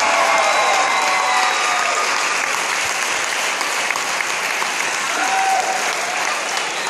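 Audience applauding steadily after a stage performance, with a few voices calling out over the clapping.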